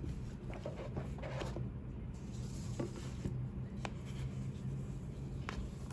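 Hands opening a cardboard gift box and handling the soft fabric dust bag inside: light rubbing, rustling and a few short clicks and taps of cardboard, over a steady low hum.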